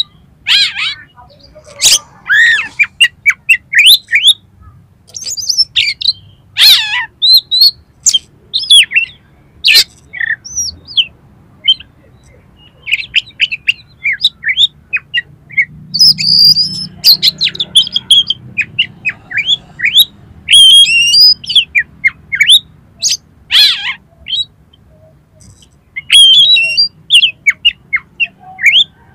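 Oriental magpie-robin (kacer) singing a loud, fast run of varied whistles, slurred notes and harsh chattering clicks, broken by short pauses.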